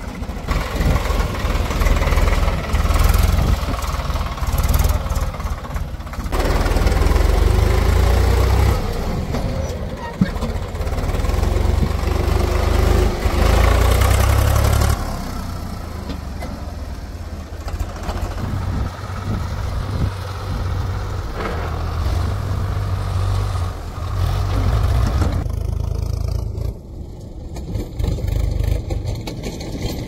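Diesel engines of a backhoe loader and tractor running at work, the deep engine rumble swelling and easing several times.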